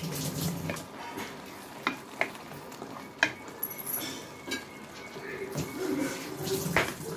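Wooden spoon stirring thick curd-and-masala gravy in an aluminium pressure cooker, scraping through the mix with a few sharp knocks of the spoon on the pot, over a faint sizzle of the cooking masala.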